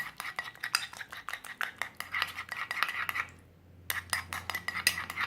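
A spoon stirring a mixture of honey and olive oil, clinking quickly and repeatedly against the side of its container, with a brief pause a little past halfway.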